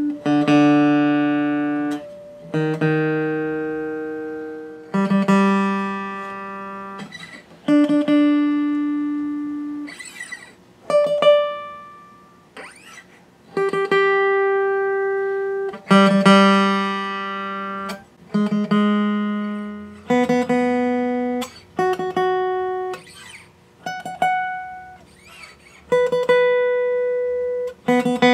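Martin D-41 steel-string dreadnought acoustic guitar, single notes plucked one after another, about one every two seconds, each ringing out and fading, as the strings are checked one at a time against an electronic tuner.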